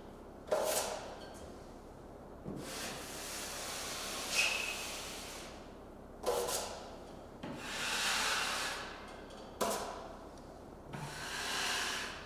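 Wide drywall taping knife scraping joint compound across ceiling seams: about half a dozen scraping strokes, each a second or two long, feathering out the mud.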